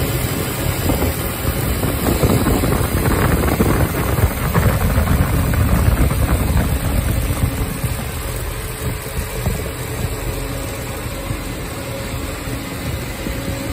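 Three-head hair wefting machine running: industrial sewing machine heads stitching rapidly over a steady motor hum. It is loudest in the first half and settles to a quieter, even running after about eight seconds.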